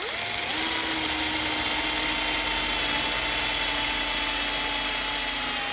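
Cordless drill spinning up and boring the barrel-nut hole through a guitar neck's wooden tenon, guided by a steel drill bushing in an aluminium jig. The motor pitch rises as it starts, then holds a steady whine that sinks slightly as the bit cuts.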